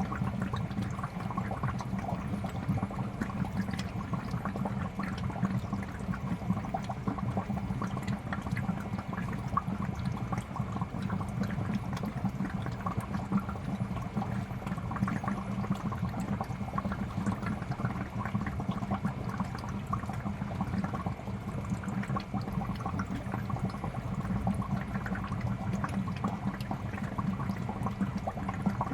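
Fish tank air bubbler sending a steady stream of bubbles up through the water, with continuous small bubbling and popping over a low steady hum.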